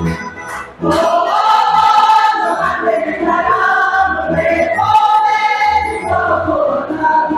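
A group of voices singing a Croatian folk song together, coming in about a second in after a short lull, over an accordion and tamburica string band.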